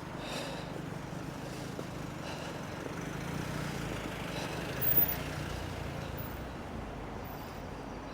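A vehicle passing on a street, its low rumble swelling and fading, with a brief knock about five seconds in.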